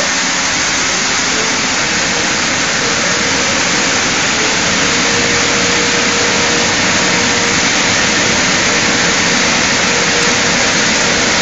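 Christ automatic car wash's air dryer blowers running, a loud, steady rush of air. A faint steady whine joins about halfway through.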